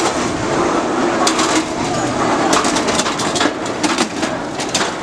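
Toboggan sleds clattering and knocking on the steel slide chute, with sharp clicks scattered through, over a murmur of voices.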